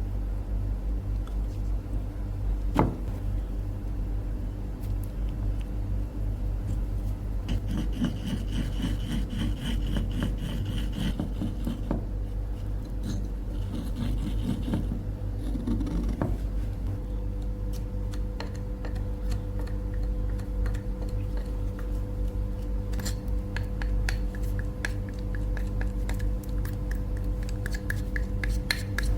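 A power tool's motor running with a steady hum while material is rubbed and scraped against it, with short runs of fine ticking.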